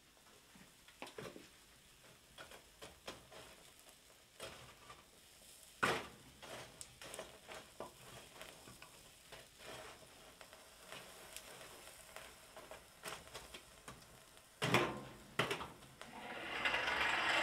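Wood fire on forge coals crackling, while a metal rod pokes and stirs the burning logs and coals, with scattered clicks and two louder knocks. A steady rushing noise builds near the end.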